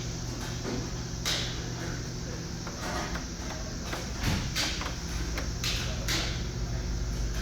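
Machine running with a steady low hum and irregular clicks and scraping knocks, the noise of a bearing with a damaged running surface.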